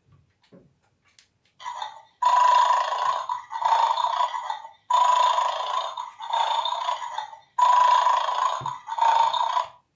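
Electronic dog sounds from the Bad Dog toy's small speaker in its plastic food bowl: harsh, distorted bursts of about a second each, coming in three pairs, after a couple of light plastic clicks as the toy is handled.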